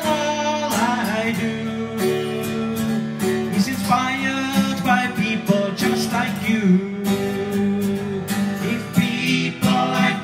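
A man singing a slow song to his own strummed acoustic guitar. The strummed chords run steadily under the held notes of his voice.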